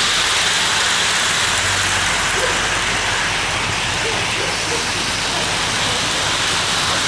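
A steady, even hiss with no rhythm, plus a low hum in the first two seconds while an O-gauge model steam locomotive and tender roll past close by on three-rail track.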